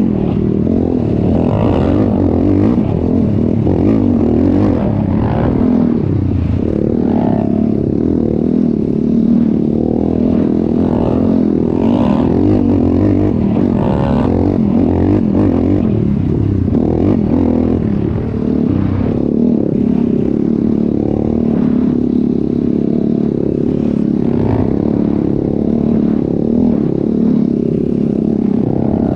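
ATV engine running loudly during a ride, its pitch rising and falling as the throttle is worked.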